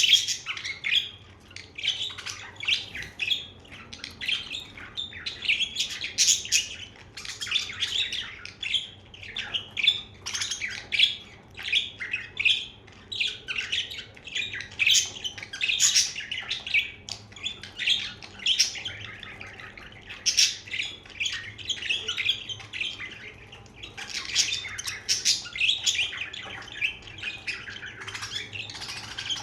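Pet budgerigars chirping and chattering, a steady stream of quick high chirps and warbles.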